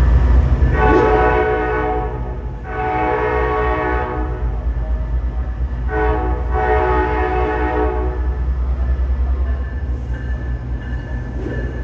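Diesel locomotive horn sounding three long blasts, each a chord of several tones held for about two seconds, over the steady low rumble of the idling diesel engine.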